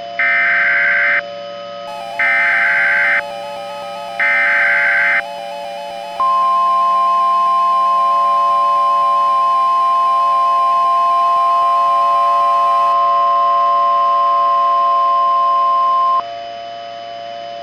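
Emergency Alert System SAME header sent three times as harsh digital data bursts, each about a second long with a second's gap. About a second later comes the NOAA Weather Radio 1050 Hz alert tone, a single steady pitch held for about ten seconds before it cuts off. Together they mark the start of a new warning. A steady electronic hum runs underneath.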